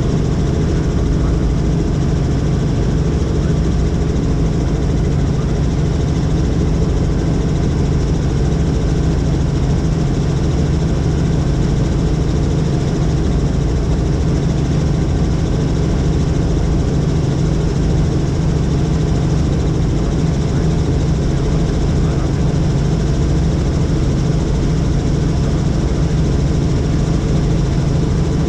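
Helicopter in flight: a steady, loud drone of engine and rotor with no change in pitch or level.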